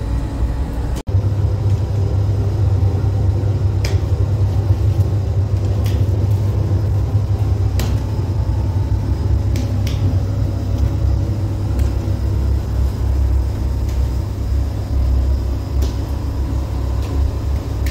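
Steady low rumble of a bakery's revolving bread oven running, with a few light clicks scattered through it.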